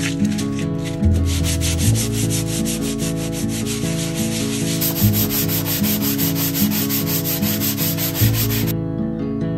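Hand sanding block rubbed back and forth against a wall in quick, even strokes, smoothing down filler patches; the strokes stop shortly before the end, over background music.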